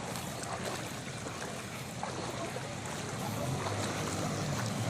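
Knee-deep floodwater moving and splashing: a steady wash of water noise that grows a little louder after about three seconds.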